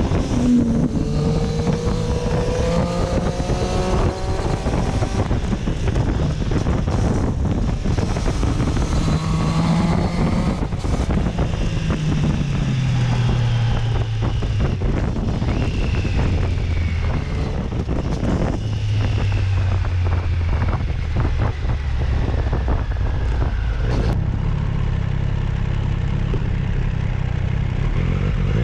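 Triumph Street Triple motorcycle's three-cylinder engine under way on the road, pulling up through the gears with the pitch rising in surges during the first ten seconds or so, then falling away in long glides as it eases off.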